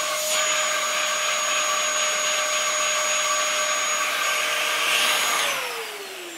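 Vacuum cleaner with a hose and brush nozzle running steadily, a suction hiss with a high whine. About five seconds in its motor winds down, the whine falling in pitch and the noise fading.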